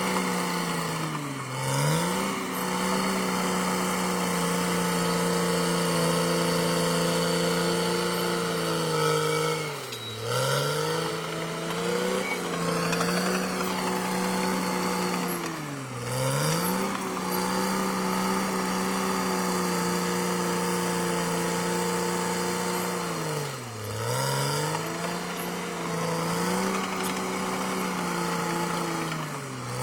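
Caterpillar D6R XL bulldozer's diesel engine running steadily at high speed. Its pitch dips and climbs back about every six to eight seconds, five times in all.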